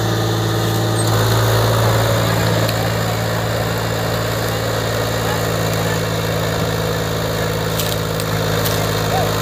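Farm tractor's diesel engine running hard under heavy load, hauling a full sugarcane trailer stuck in soft ground. A steady engine note that grows fuller about a second in.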